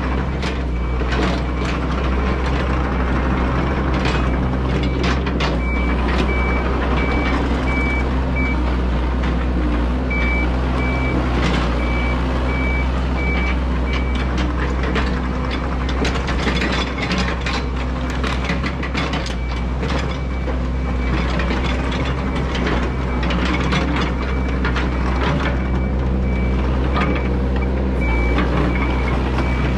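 Yanmar ViO80 excavator's diesel engine running steadily as the machine travels over fresh fill, with its travel alarm beeping in a steady series of short beeps, clearest in the first half. Clanks and knocks from the tracks and undercarriage are scattered through.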